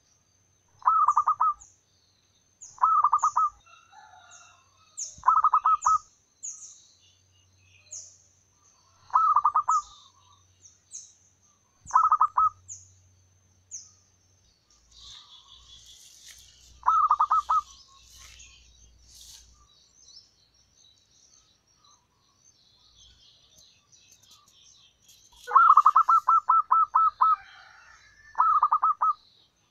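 Zebra dove cooing: about eight short bursts of rapid staccato coos, a few seconds apart, the longest run near the end. A thin high chirping runs above it during the first half.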